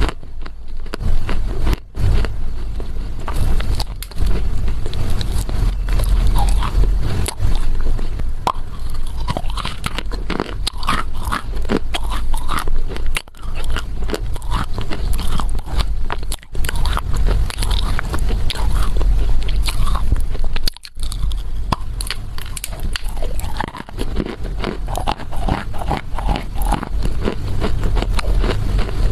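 Close-miked biting and chewing of a chunk of dry Chinese loess clay: dense, gritty crunching, broken by a few brief pauses.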